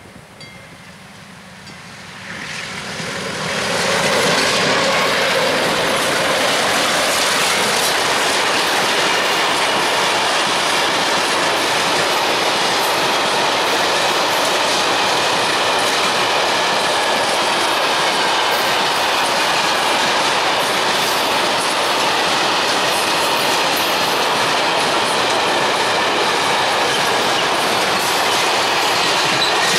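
Long freight train of open wagons passing close by. The noise swells over the first four seconds as the head of the train draws near, then holds as a steady rumble and clatter of wagon wheels on the rails, with faint high wheel squeal.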